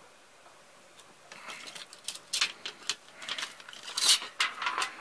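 Thin aluminium sheet cut from a drinks can crinkling and rustling as it is handled, in a run of irregular crackles starting about a second in.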